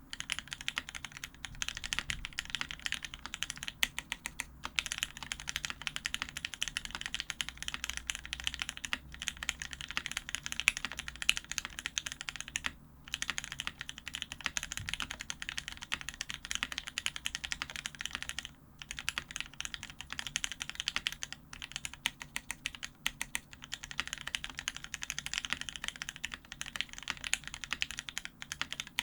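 Steady, fast typing on a custom aluminium-plate mechanical keyboard with lubed, filmed Gateron Ink Black linear switches, 70 g springs and PBT keycaps. The keystrokes run continuously, with two brief pauses about 13 and 18 seconds in.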